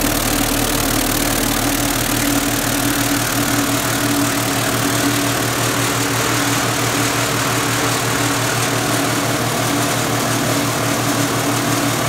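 Vibratory deburring tumbler running: a steady machine hum under a dense, even hiss of triangular tumbling media churning in the vibrating tub.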